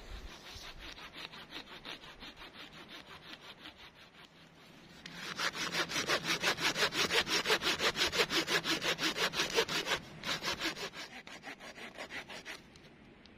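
Folding hand saw cutting through a dead, partly rotten log with rapid back-and-forth strokes, about four to five a second. The strokes get much louder about five seconds in, soften again about ten seconds in, and stop shortly before the end.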